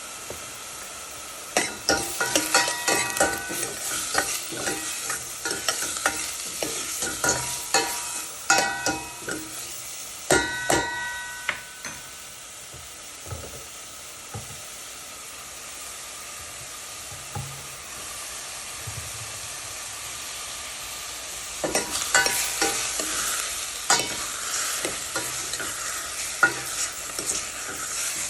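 Food sizzling as it fries in oil in a pan, with a spoon or spatula scraping and clinking against the pan in two spells of stirring and quieter steady sizzling between.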